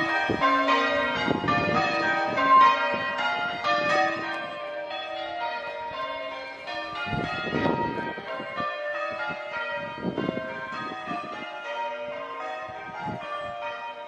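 Change ringing on a ring of six church bells (tenor 7-3-11 cwt, in B-flat), the bells struck one after another in a steady, unbroken stream of overlapping ringing tones. It grows quieter after about four seconds, with a few short bursts of noise over it.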